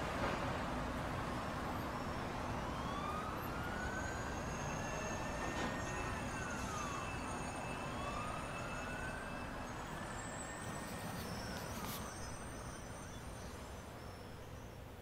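Emergency vehicle siren wailing in two slow rising-and-falling sweeps over steady city traffic noise, fading toward the end.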